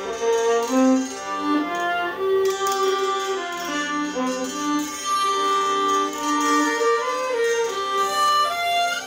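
Ambient soundscape music: a slow melody of held, sustained notes over a steady layered backing.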